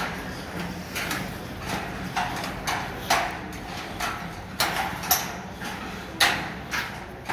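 Footsteps on perforated steel scaffold decking: sharp metallic clacks at a walking pace, about one to two a second and unevenly spaced.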